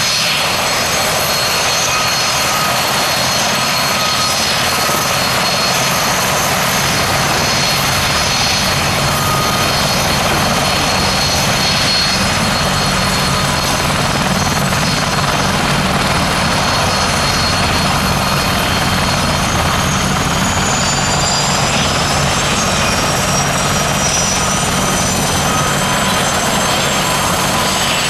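A pair of Westland Gazelle HT3 helicopters flying a display: steady rotor noise with a high turbine and fenestron tail-rotor whine over it. The whine rises in pitch about twenty seconds in.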